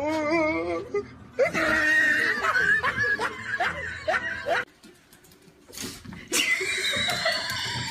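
A person laughing in repeated bursts, breaking off about four and a half seconds in; after a short quiet gap a different, higher wavering sound comes in near the end.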